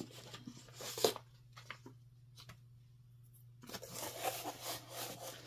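A cardboard shipping box being opened by hand: its flaps scrape and rustle in short bursts, go quiet for about a second and a half midway, then rustle and scrape again more busily.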